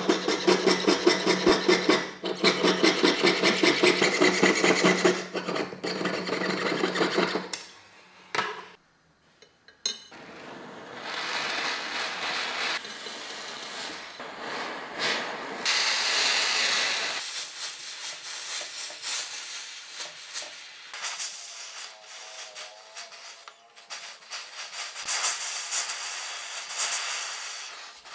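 A jeweller's piercing saw cutting through metal sheet in rapid, even back-and-forth strokes for about eight seconds. After a brief pause, a handheld gas torch flame hisses while it heats the metal piece on a soldering block.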